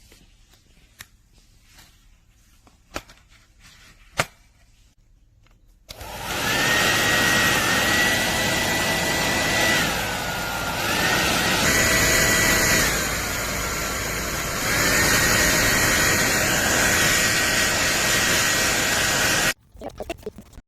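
A few sharp clicks, then an ANNE BETTY 1800W ionic hair dryer switches on about six seconds in and runs with a steady rush of air and a high motor whine. The whine and airflow drop twice and come back up, and the dryer cuts off sharply near the end.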